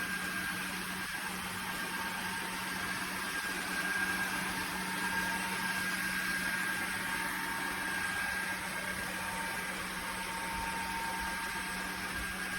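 Dreame H12 Pro wet-dry floor vacuum running steadily, a constant motor hum with a faint high whine over a hiss of airflow.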